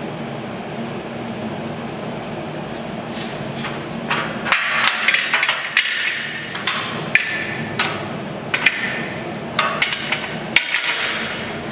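Sharp metallic clanks and taps on steel, some with a short ring, as steel parts and tools are knocked against a heavy steel-tube beam. They come in an irregular run starting about four seconds in, over a steady low hum.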